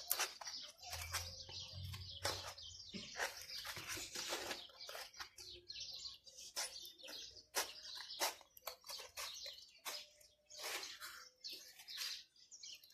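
Scissors snipping through a white craft-foam sheet: a quick, irregular run of sharp snips with paper-like rustling as the sheet is handled.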